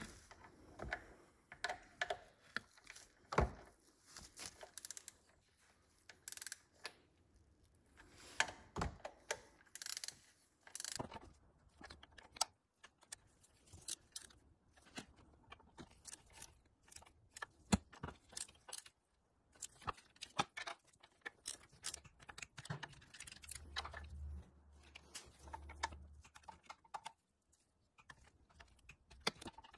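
Torque wrench and socket clicking and clinking as the small bolts of a BMW E46 VANOS cover are torqued down to 6 ft-lb: quiet, scattered, irregular metal clicks.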